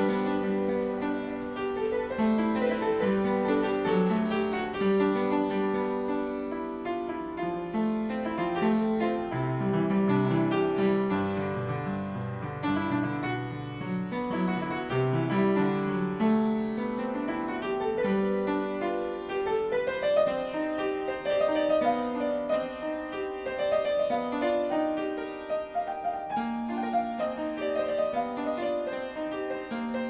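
Instrumental piano music.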